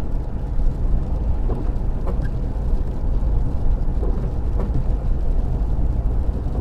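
Car at speed on a wet road, heard inside the cabin: a steady low rumble of tyres and engine, with a few faint ticks.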